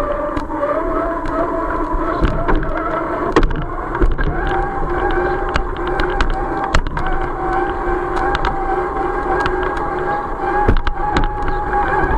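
Electric drive motor and gearbox of a remote-control Jeep Gladiator truck whining steadily as it crawls off-road. The pitch steps up about half a second in and again around four seconds, with scattered clicks and knocks throughout.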